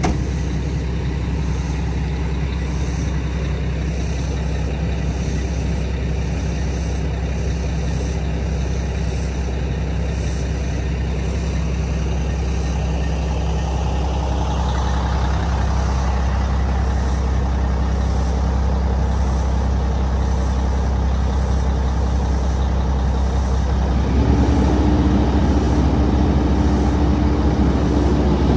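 Kubota SVL95-2 compact track loader's four-cylinder turbo diesel running steadily. From about halfway the machine is moving on its tracks. A few seconds before the end a steady whine joins and the sound gets louder.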